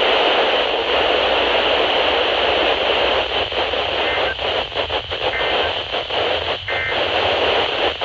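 Radio static: a steady hiss from a weather-band radio receiver with no clear signal, wavering in level in the second half.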